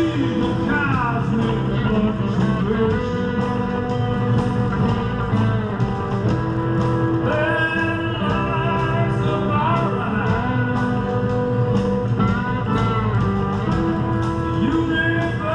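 Live rock-and-blues band playing: electric and acoustic guitars over drums, with trumpet lines.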